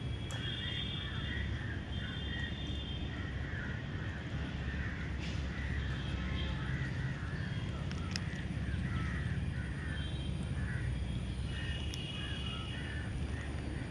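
Birds calling repeatedly, in short harsh crow-like calls with bursts of higher chatter, over a steady low rumble.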